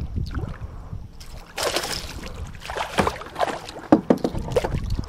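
A hooked largemouth bass splashing and thrashing at the water's surface right beside a kayak. A burst of splashing comes about a second and a half in, followed by a run of sharp, irregular splashes and knocks.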